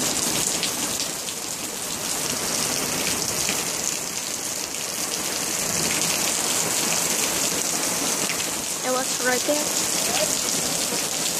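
Steady rain falling, an even hiss of drops on the ground and roof.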